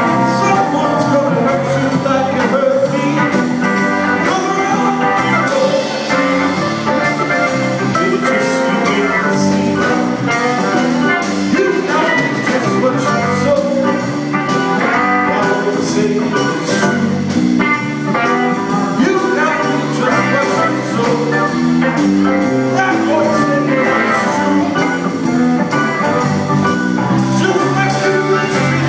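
Small band playing live: electric keyboard, drum kit and electric guitars, with a male singer at the microphone.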